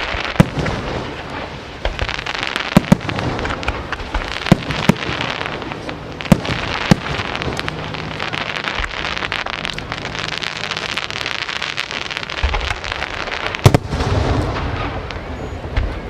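Aerial fireworks display: sharp booms from bursting shells, one every second or so, over continuous dense crackling.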